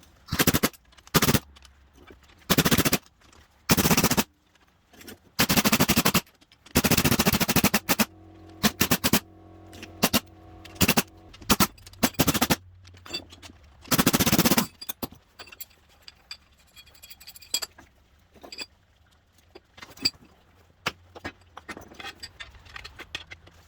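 Impact wrench run in a string of short bursts, rattling as it undoes the bolts of a coil-spring compressor evenly to release a strut spring's tension. Quieter metal clinks follow over the last several seconds.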